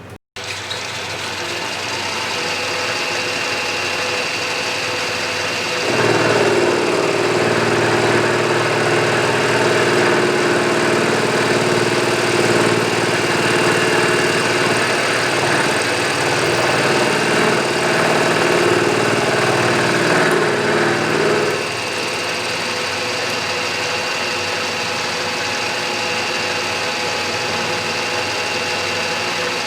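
Milling machine running with its spindle turning steadily. About six seconds in, the cutter bites into the metal, taking a facing cut off a flange to bring it down to 1/8 inch. The cut runs for about fifteen seconds, then the machine runs free again.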